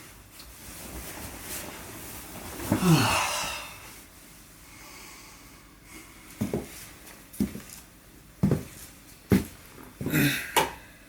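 A person's wheezing groan that falls in pitch about three seconds in, followed by a series of short breathy sounds.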